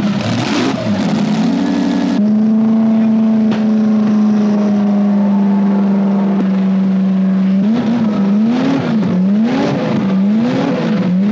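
1934 Auto Union racing car's supercharged V16 engine running. It revs unevenly for about two seconds, then holds a steady pitch for several seconds. Near the end it is blipped up and down in a regular rhythm, a little more than once a second.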